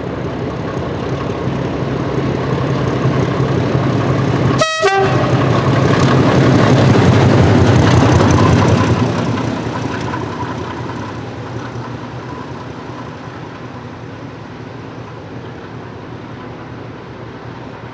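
Class 37 diesel locomotive 37901's Mirrlees engine running at low revs as it passes by, growing louder to a peak about eight seconds in and then fading away.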